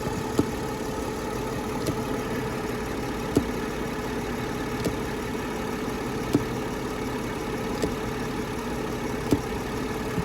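2000 Mercedes CLK320's 3.2 V6 idling, with a sharp thump about every second and a half from a pulsing valve in the heater line. The owner takes the valve for some sort of blend valve firing sudden bursts of pressure, and has been told the thumping is normal.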